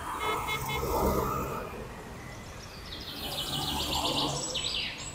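Road traffic passing, a low engine hum and rumble that swells twice, with birds chirping: a few short chirps early and a rapid run of high repeated notes near the end.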